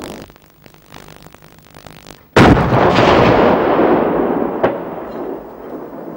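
One shot from the CV-90's 40 mm Bofors cannon firing an APFSDS round: a sudden loud blast a little over two seconds in, followed by a long rolling rumble that dies away, with a single sharp crack about two seconds after the blast.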